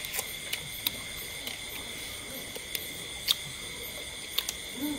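Steady high-pitched chirring of night insects, with scattered sharp clicks and smacks from people chewing and eating with their hands.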